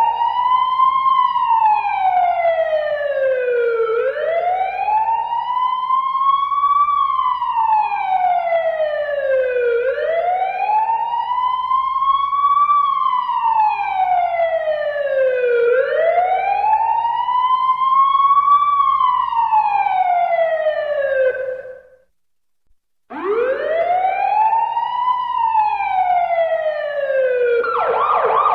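Police car siren sounding a slow wail, its pitch rising and falling about every six seconds. It cuts out for about a second, resumes the wail, and switches to a rapid yelp near the end.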